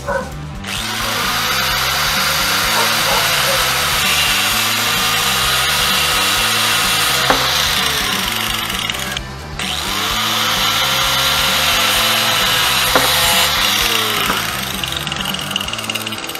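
Cordless drill running in two long runs with a short break between them. In each run the motor's pitch rises as it spins up and sags toward the end.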